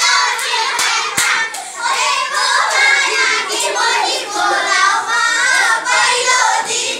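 A group of children singing together in Nepali folk dohari style, with hands clapping along about twice a second.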